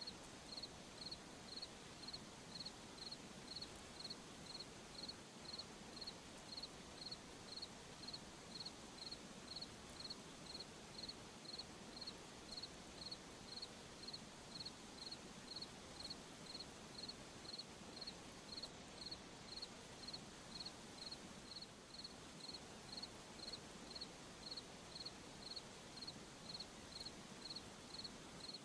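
A cricket chirping steadily, one high chirp repeated evenly about one and a half times a second, over a faint hiss.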